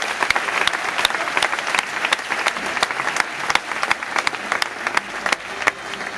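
Audience applauding, the clapping dense at first and thinning out near the end.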